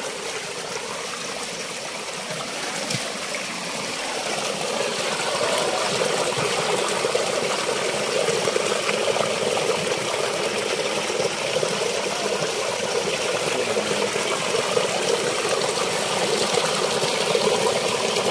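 Hot spring water running and splashing over rocks in a small cascade, a steady rush that grows louder a few seconds in.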